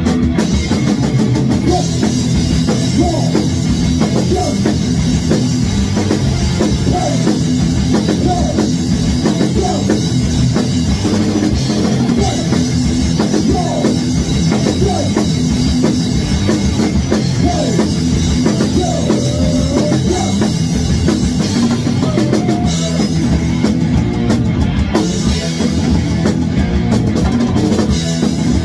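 Thrash metal band playing live at full volume: fast drum kit, distorted electric guitar and bass, with a singer's voice over it.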